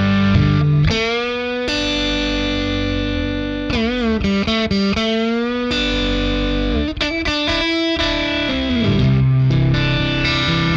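Overdriven electric guitar played through a Catalinbread NiCompressor, an analog FET compressor, with the compression set high and the gain cranked. It plays long held single notes with vibrato and string bends, one bending down about three quarters of the way through.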